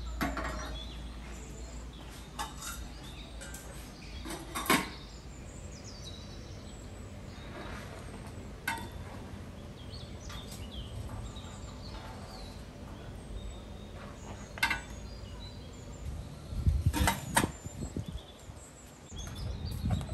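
Handling noises from outdoor cooking gear: scattered knocks and metallic clinks as a samovar and a tandoor are worked on, loudest in a cluster of knocks near the end. Birds chirp faintly now and then.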